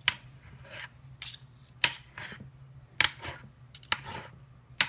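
Metal three-bladed claw shredders scraping and clinking against a glass baking dish as they tear through pulled pork, with a sharp stroke about once a second.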